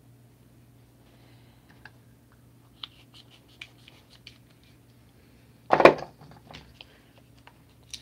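Small clicks and taps of craft materials being handled in the hands, with one louder rustling knock of about half a second near six seconds in, over a faint steady low hum.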